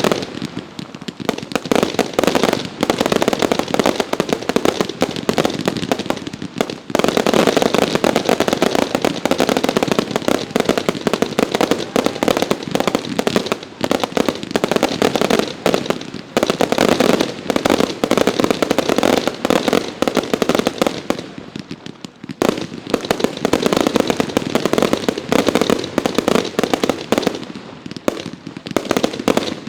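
Consumer fireworks going off in rapid, continuous succession: many sharp bangs over dense crackling, with a few short lulls.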